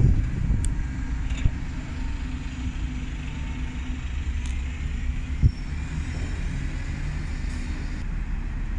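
Bus engines running, a low steady rumble, with two short thumps, one about a second and a half in and one about five and a half seconds in.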